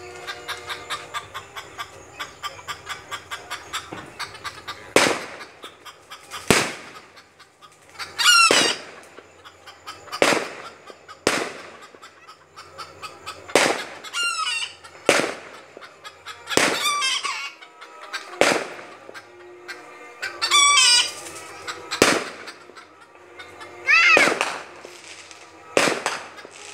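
Aerial fireworks bursting overhead: a string of about fifteen sharp bangs, one every one to two seconds, some joined by high wavering glides. A fast even ticking fills the first few seconds.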